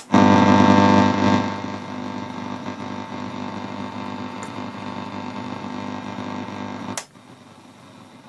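Telefunken TRX 2000 receiver switched to longwave near 228 kHz, putting out a loud buzzing hum through its speaker with a band-switch click at the start. The hum is loudest for about the first second, then runs on steady, and cuts off with a second click about seven seconds in as the set goes to medium wave.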